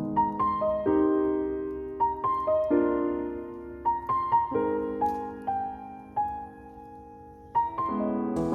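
Background piano music: a gentle melody of single struck notes over held chords, each note dying away. It thins to a few fading notes near the end, then a new chord comes in.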